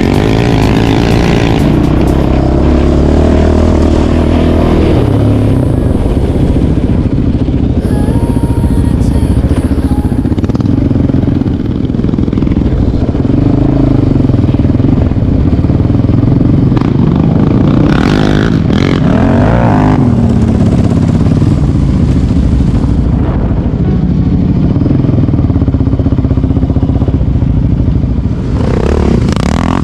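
Quad bike (ATV) engine running under load, its pitch rising and falling with the throttle.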